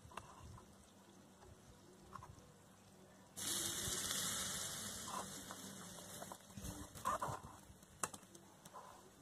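Paneer pieces frying in a miniature pan sizzle up suddenly about three seconds in as more fat is spooned in, then slowly die down; a few light clicks near the end.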